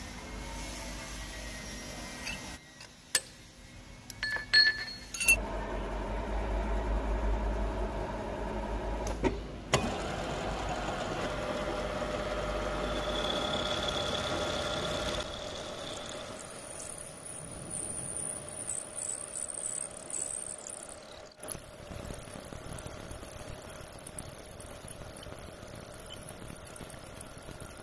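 Milling machine running as an end mill cuts spline slots into an SKD61 tool-steel gear shaft held in a dividing head. There are a few sharp clinks in the first few seconds. The sound then changes several times, and a steady high hiss comes in past the middle.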